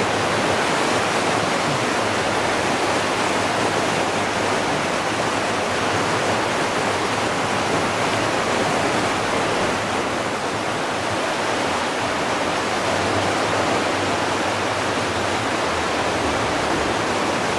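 River in flood rushing past in a steady wash of turbulent water.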